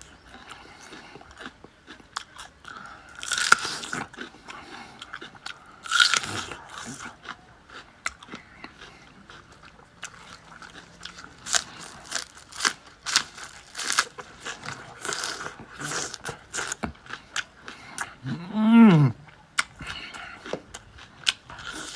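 Close-up chewing and biting of crunchy food, with many sharp crunches. Near the end comes a short vocal sound that rises and then falls in pitch, the loudest moment.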